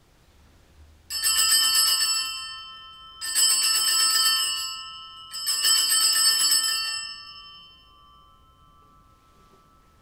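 Altar bells (Sanctus bells) shaken in three peals about two seconds apart, each ringing out and then fading, marking the elevation of the chalice at the consecration.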